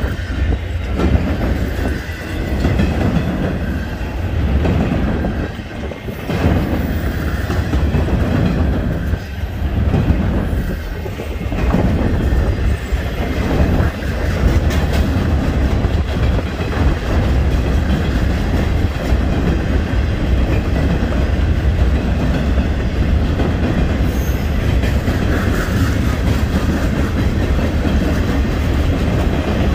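Freight train cars rolling past close by: a steady low rumble with the wheels clicking over the rail joints, the clicks most distinct in the first half.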